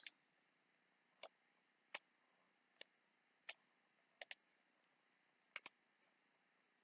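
Computer mouse clicking, single clicks and quick double clicks about once a second, over near silence.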